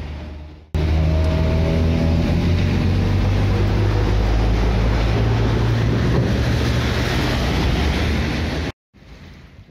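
Heavy trucks driving past close by on a rain-soaked road: a deep diesel engine drone with tyres hissing through standing water. It starts about a second in and cuts off suddenly near the end.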